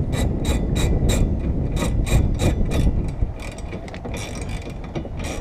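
Hand ratchet clicking in quick, even strokes, about three clicks a second, as the wiper-arm nut is tightened down, over a low rumble.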